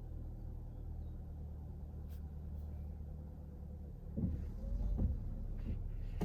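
Car driving, heard from inside the cabin: a steady low road-and-engine rumble, with a few heavier low thumps and a short rising squeak between about four and five seconds in.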